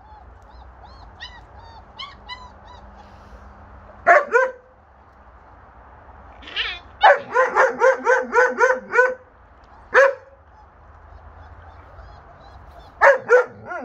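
Dogs barking: two barks about four seconds in, a quick run of about eight barks around seven to nine seconds, a single bark at ten seconds and two more near the end, with faint high puppy whimpers in the first few seconds.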